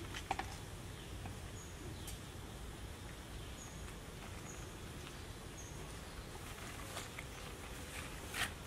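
Outdoor ambience: a steady low rumble with four faint, short, high chirps and a few soft clicks and rustles, the loudest rustle near the end.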